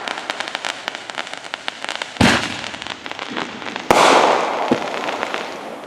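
Fireworks going off: a run of rapid crackling, then two loud bangs about two and four seconds in, each trailing off in a crackling fizz that fades.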